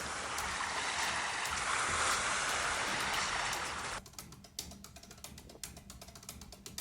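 Sea waves washing in a steady surf hiss that cuts off abruptly about four seconds in, leaving a quiet stretch with scattered faint clicks.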